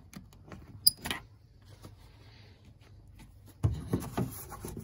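Engine-cover latch on an Argo's plastic body being undone: a few small clicks and one sharp snap with a short metallic ping about a second in. From about three and a half seconds, the plastic cover is lifted and shifted with a rubbing, scraping noise.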